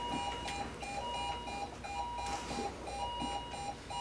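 Bedside patient monitor beeping fast, about three short beeps a second, with a longer, slightly higher alarm tone sounding on and off over them. The beeps follow a heart rate reading 174: a rapid heart rhythm, ventricular tachycardia in this simulation.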